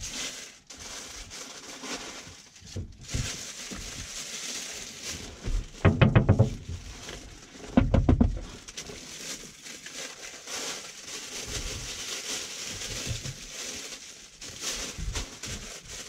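A man's voice giving two drawn-out 'ooh' calls about two seconds apart, calling monkeys to be fed, over a steady hiss.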